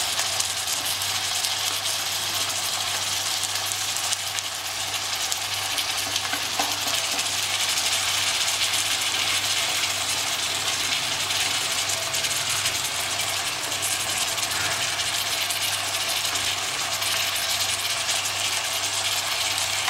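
Goat meat sizzling steadily in hot ghee and browned onions in a stainless-steel pressure cooker.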